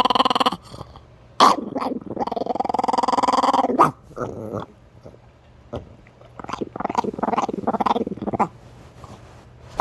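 Chihuahua vocalizing: a long drawn-out call, then a string of shorter calls about three seconds later.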